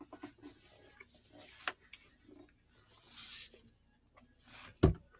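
Scattered small clicks and light scratching close to the microphone, with a breathy hiss about three seconds in and a sharp thump near the end.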